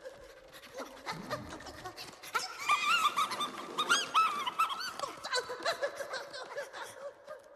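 Animated squirrels squeaking and chittering: a quick run of short, high squeaks that rise and fall, busiest a few seconds in.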